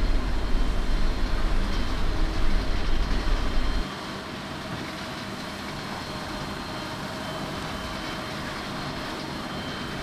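Nexat combine harvester running while harvesting wheat: a steady machine rumble. The heavy low rumble drops away sharply about four seconds in, leaving a quieter steady hum.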